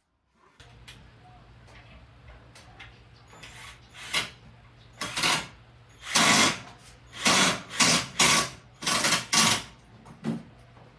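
A cordless drill runs in about nine short bursts against plywood, each under a second long, from about four seconds in until near the end. A low steady hum sits underneath.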